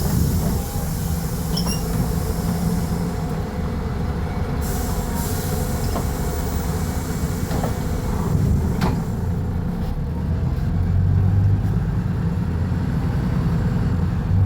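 Volvo B290RLE city bus's diesel engine running, a steady low drone that swells a little about eleven seconds in, with a sharp knock near nine seconds.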